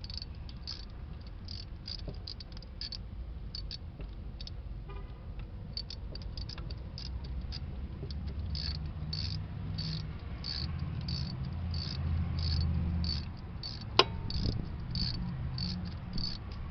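Crickets chirping in a steady, even rhythm of a few chirps a second. Under them a low rumble swells in the middle, and a single sharp click comes about fourteen seconds in.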